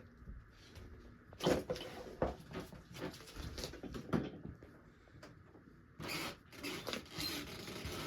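Quorum pinwheel ceiling fan running on low speed, with irregular ticks and rattles and a denser stretch of rattling near the end. The blades are still not balanced perfectly.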